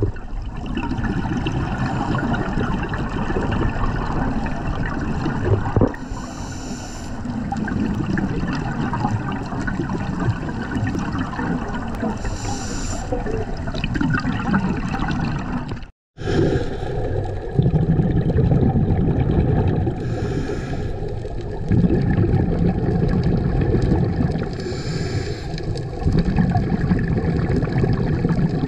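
Scuba regulator breathing heard underwater: a steady rushing, gurgling water noise with a short hissing burst of exhaust bubbles every five to eight seconds. The sound drops out completely for a moment about sixteen seconds in.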